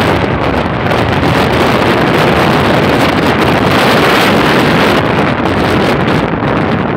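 Wind buffeting the microphone: a loud, steady rushing with no engine or other pitched sound in it.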